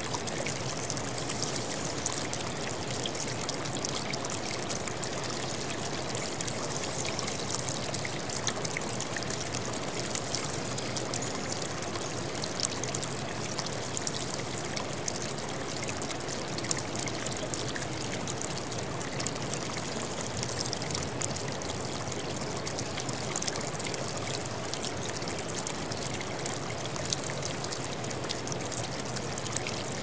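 Small stream trickling and splashing over rocks: a steady rush of running water dotted with many small splashes.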